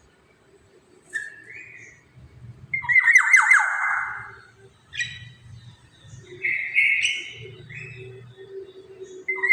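Black-naped oriole (kepodang) calling: a loud harsh, rattling squawk about three seconds in, with shorter single notes before and after it, and another harsh call starting at the very end.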